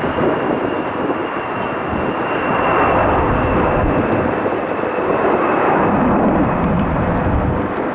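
Airbus A320-200 jet engines at takeoff power: a steady loud rush with a thin high whine that sinks slightly in pitch, swelling to its loudest midway, with gusty low rumble under it.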